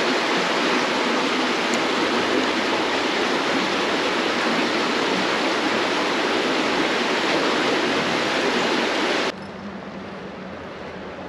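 Creek water rushing in a steady loud hiss, which cuts off abruptly about nine seconds in to a quieter, more distant water rush.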